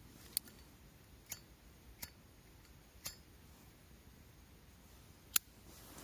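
Five sharp, irregularly spaced clicks over a faint steady hiss, the last one near the end the loudest.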